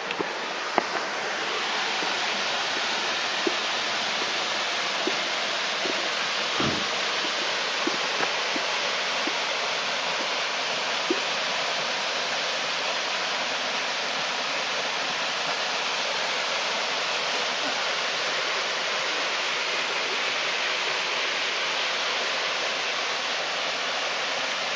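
Water pouring down a concrete dam, a steady, even rush that grows slightly louder about a second in.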